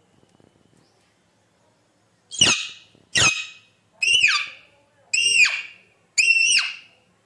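Alexandrine parakeet squawking: five loud, harsh calls about a second apart, starting about two seconds in. The owner presents these calls as the bird being angry.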